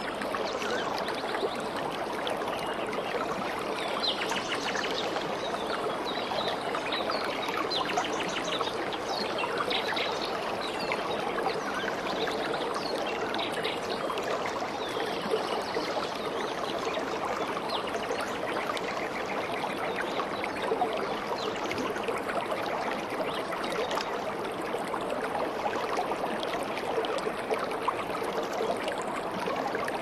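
Stream water flowing and splashing over stones, a steady even rush with constant small splashes.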